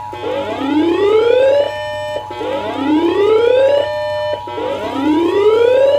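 Emergency Broadcast System two-tone attention signal, a steady pair of tones near 853 and 960 Hz, with a rising siren wail laid over it. The wail climbs, holds its top pitch for a moment and cuts off, three times, about every two seconds.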